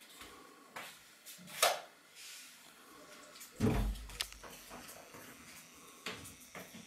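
Scattered clicks and knocks with one heavy, low thump a little past halfway: handling noise as the camera is moved and reframed.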